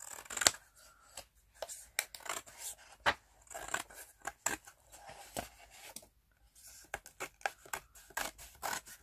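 Scissors cutting along the gap between a hardback book's spine and its text block, separating the pages from the cover: a run of irregular sharp snips and paper crunches, the loudest about half a second in.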